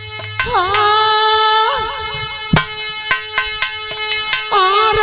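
Indian devotional folk accompaniment: a wind instrument plays a sliding, ornamented melody over a steady held drone, punctuated by a few sharp hand-drum strokes.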